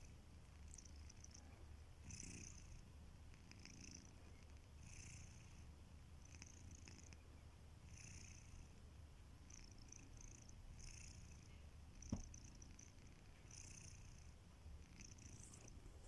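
Sleeping domestic cat's faint, rhythmic snoring breaths, a soft hiss about every second and a half over a low steady rumble. A single short click about three-quarters of the way through.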